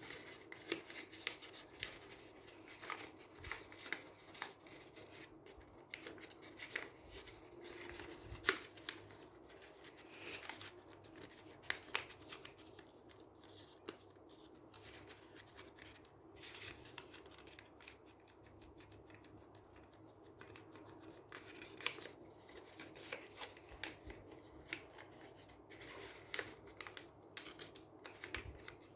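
A sheet of white paper being folded and creased by hand: irregular crinkles, rustles and sharp little crackles as the folds are pressed.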